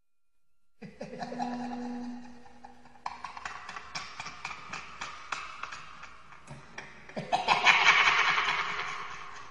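Horror sound effect. A short low drone is followed by a run of sharp, quick snickering pulses, then a long, loud hissing 'shhh' about three-quarters of the way in that fades out.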